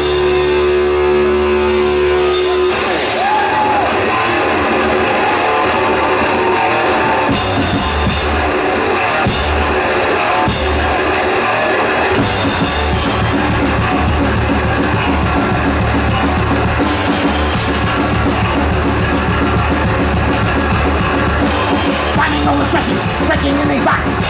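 Live thrash metal band playing an instrumental break with distorted electric guitars, bass and drum kit. A chord rings out for the first few seconds, then the drums and guitars come back in hard and the full band plays on at a steady driving beat.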